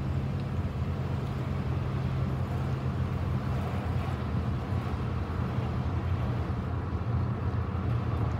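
Steady low drone of a vehicle's engine and tyres heard from inside the cab while cruising along a road.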